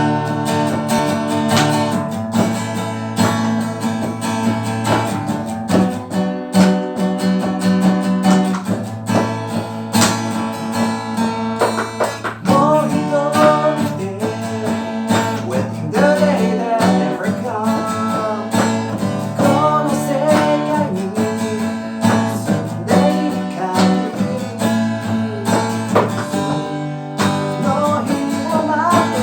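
Rock band playing an instrumental intro live: guitar chords over a steady drum beat, with a bending melody line coming in about 12 seconds in.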